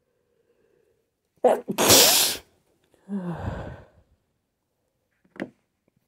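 A woman sneezes once, loudly, about a second and a half in, after a short catch of breath; the sneeze is one she has brought on deliberately. A softer voiced exhale follows, falling in pitch, and there is one short sound near the end.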